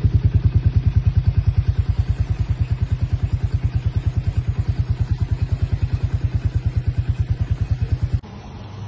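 A low-revving engine running with a steady chugging beat, about ten pulses a second. It cuts off suddenly near the end.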